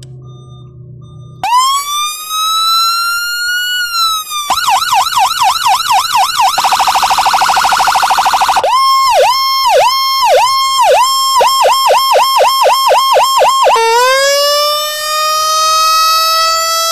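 Whelen 295SL100 electronic siren being switched through its tones: after a faint low hum, a wail rises and falls, then a fast yelp, an even faster warble, a steady-pitched chirping pattern that speeds up, and near the end a wail rising again.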